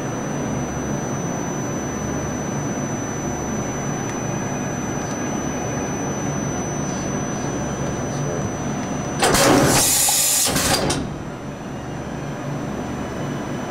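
Okuma & Howa Millac 438V CNC vertical machining center running at idle with a steady mechanical hum and a thin high whine, broken a little past the middle by a loud hiss lasting about two seconds.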